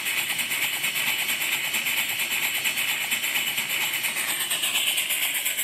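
Model Southworth steam boiler feed pump running on steam, a fast, even clatter of strokes over a steady hiss, as it pumps feedwater into the boiler and the level rises in the gauge glass.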